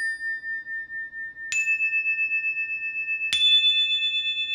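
Bell-like chime tones in a music intro. One note is already ringing, a higher one is struck about a second and a half in, and a higher one still nearly two seconds later. All three ring on together with a slow wavering pulse.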